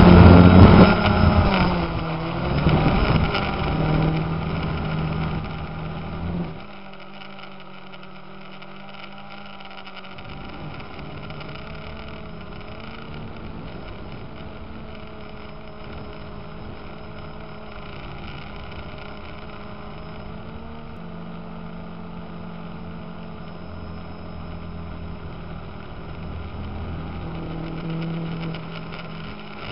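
Steady motor hum from the aircraft carrying the camera. For the first few seconds it is louder and wavers up and down in pitch, then about six seconds in it drops and settles into an even drone.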